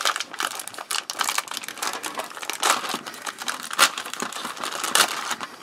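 Clear plastic parts bag crinkling and rustling as it is handled and pulled open, with a run of irregular crackles and a few sharper ones, the loudest about four seconds in.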